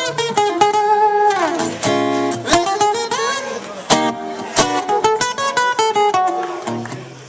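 Live band playing an instrumental break led by guitar, a melodic line of picked notes with one note sliding down in pitch about a second and a half in.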